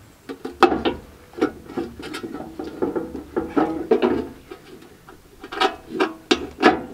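Steel ammo can being set down and shifted into place on a tractor's metal mount, with knocks and scrapes of metal on metal. A sharp knock comes about half a second in, and several more cluster near the end.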